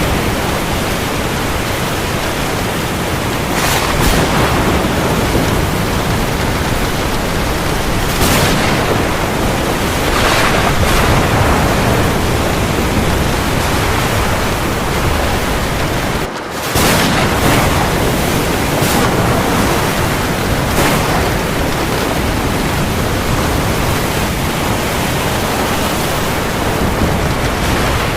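Heavy rain falling, a dense steady hiss that swells louder several times. The sound dips out for a split second about sixteen seconds in.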